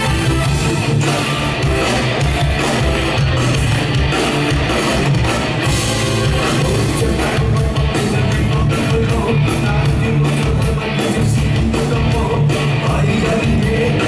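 Live Cantopop band playing an upbeat rock number at full volume, electric guitar and drum kit to the fore.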